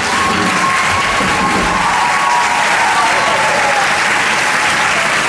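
Audience applauding steadily. Over the first few seconds a long held sung note carries through the clapping, then slides down in pitch and fades out.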